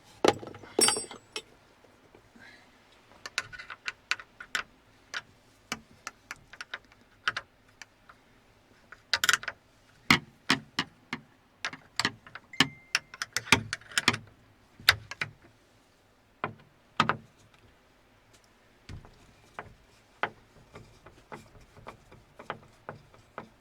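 Irregular clicks, clinks and knocks of hand tools working on metal fittings as an excavator's windshield is unfastened, with a short high squeak about halfway through.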